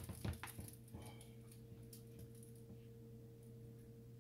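Faint scrapes and light taps of a wooden spatula stirring vegetables in a cream sauce in a skillet, mostly in the first second or two, over a steady low hum.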